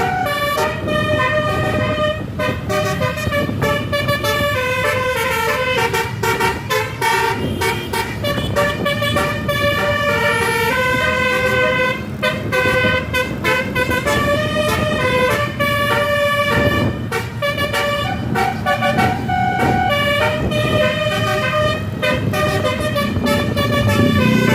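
Multi-tone 'telolet' bus horn playing a melody, its notes stepping up and down one after another without a break, over the low rumble of the bus and road.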